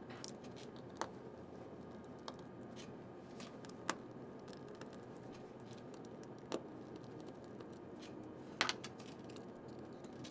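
Faint, scattered small clicks and taps of a precision Torx Plus screwdriver working screws out of a laptop's metal port bracket, over a steady low room hiss; the loudest is a quick pair of clicks near the end.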